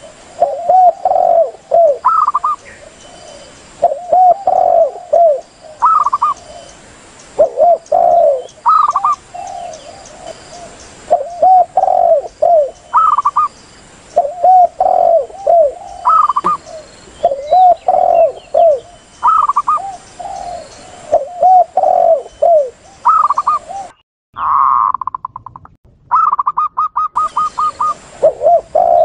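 Spotted doves and zebra doves cooing over and over, as in a dove lure recording. The lower spotted dove coo phrases repeat every second or two, mixed with higher zebra dove notes. After a brief break about 24 s in there is a quick run of short high notes.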